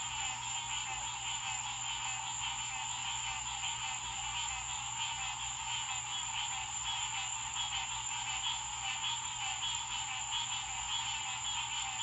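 A chorus of many frogs calling together at night, a dense, fast-pulsing, unbroken din, with a steady high-pitched whine above it.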